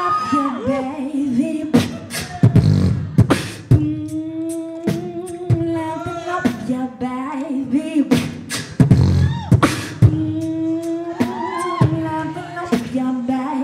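A female beatboxer performing live into a microphone: sharp snare-like clicks and deep bass kicks, with a held vocal melody line carried over the beat for several seconds at a time.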